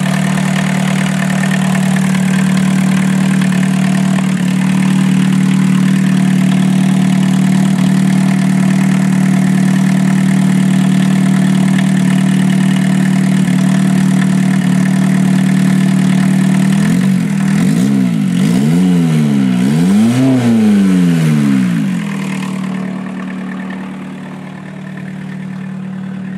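A 1981 Volkswagen Rabbit pickup's 1.6-litre diesel engine idling steadily, which the owner calls pretty quiet. About two-thirds of the way in it is revved up and back down three or four times as the throttle cable is pulled by hand, then settles back to idle, heard fainter near the end.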